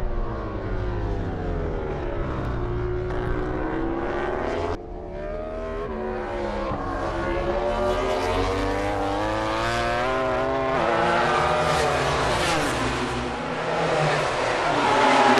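Yamaha YZR-M1 MotoGP bike's inline-four engine at high revs on a fast lap. Its pitch climbs and falls again and again through upshifts and braking for corners, with a sudden drop about five seconds in.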